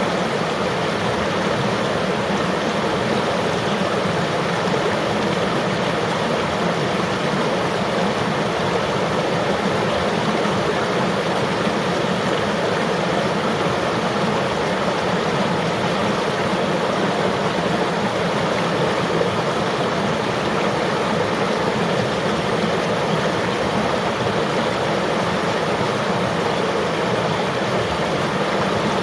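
River water flowing and rushing, a steady, even noise with no breaks.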